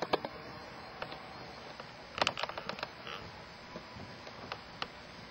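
Marker writing on a whiteboard: scattered short clicks and taps, with a small cluster about two seconds in.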